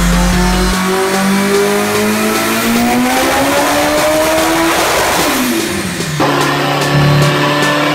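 Acura Integra drag car's engine on a chassis dyno, climbing steadily in pitch under load for about five seconds, then dropping quickly and settling to a steady run.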